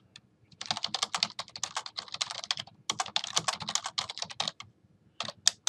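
Typing on a computer keyboard: fast runs of key clicks, with a short break about half a second in and another near the end.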